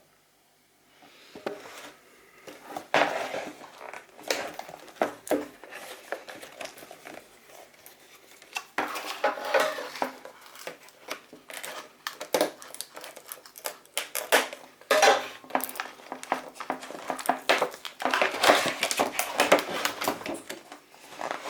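Packaging of the Acer Bluetooth keyboard being handled and opened: irregular rustling, scraping and clicking of box and wrapping, busiest near the middle and toward the end.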